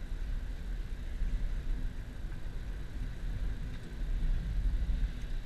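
Cabin noise of a Nissan Grand Livina driving on a wet road: a steady low rumble from the engine and tyres, with the hiss of tyres on wet tarmac.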